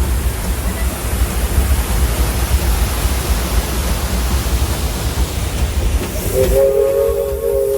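A Disneyland Railroad steam train rumbling and hissing along the track. About six seconds in, the locomotive's steam whistle starts a steady blast of several tones at once.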